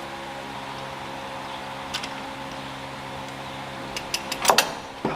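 Steady machine hum, like a shop fan running, with a single light tick about two seconds in and a quick run of sharp metallic clicks near the end, as of hand tools being handled.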